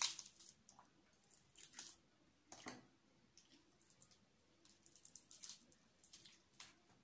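Fried meat being pulled apart with the fingers and chewed, heard as faint, scattered short crackles and soft squishes, a few per second at most, the sharpest right at the start and about two and a half seconds in.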